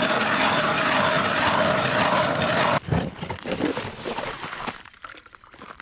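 A small motor running steadily with a faint steady whine in it, which stops abruptly a little under three seconds in. Scattered knocks and handling sounds follow.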